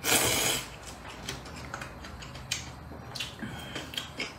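A loud slurp of rice noodles in the first half-second, then wet chewing with a run of small lip-smacking clicks.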